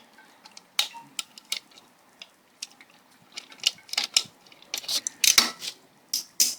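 Hand tools and metal engine parts clicking and clinking as they are handled, in irregular sharp clicks that come thicker and louder in the second half.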